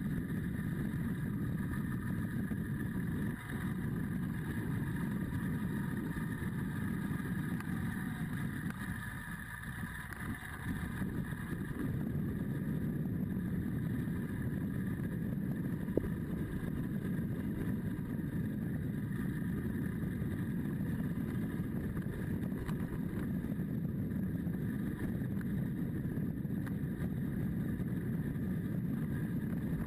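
Adventure motorcycle's engine running steadily as it rides along, with wind noise over the microphone. The sound drops a little for a couple of seconds about a third of the way in, and there is a single short click about halfway through.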